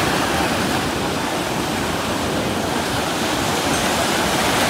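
Sea waves breaking and washing up on a sandy shore: a steady rushing noise.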